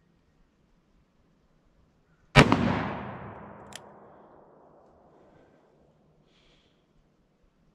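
A single shot from a Ruger Blackhawk single-action revolver in .45 Colt, firing a heavy Keith-style handload with a 255-grain cast semi-wadcutter bullet, about two and a half seconds in. Its echo dies away over about three seconds, and a short click comes about a second after the shot.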